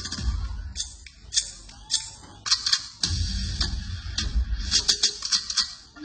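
Dance-mix music over a PA system, a deep bass under a run of sharp, irregular clicking hits.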